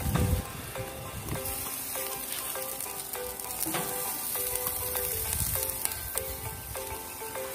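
Meat sizzling on a grill: a steady frying hiss with scattered small crackles and pops. Background music with a simple melody plays over it, and there is a brief low thud right at the start.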